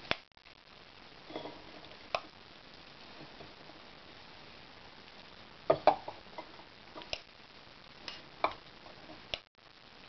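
Metal cooking pot and lid being handled, giving scattered sharp clinks and knocks: a quick run of them just past the middle, the loudest, and a few single ones either side.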